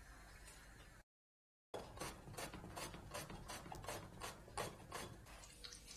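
Peeled raw banana being pushed across a stainless-steel slicer blade, rapid regular scraping strokes about four a second, starting about two seconds in.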